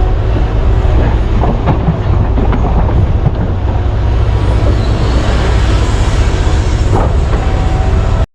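Heavy mining machinery at work: a deep, steady diesel rumble with scattered clanks and knocks, cutting off suddenly near the end.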